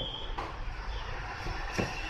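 Knife cutting through a bitter melon: two sharp knocks, about half a second in and again near the end, over a steady low background rumble.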